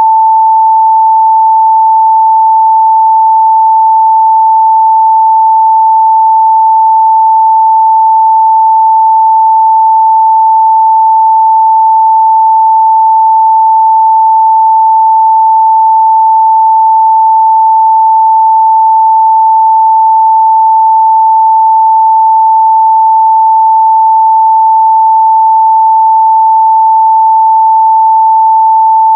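A pure 885 Hz sine-wave test tone, steady and loud, held at one pitch without a break.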